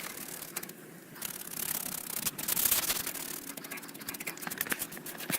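Rubbing and scraping against the fins of an air-conditioner condenser coil as packed cottonwood fluff is cleaned out of it, an irregular run of short scratchy strokes.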